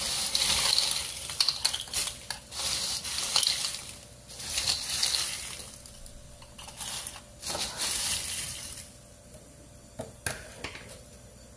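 Crisp fried sweet-potato chips stirred with a spatula in a large metal bowl to coat them evenly in chili seasoning. The chips rustle and crackle in repeated sweeps about a second long, which stop near the end, leaving a couple of light clicks.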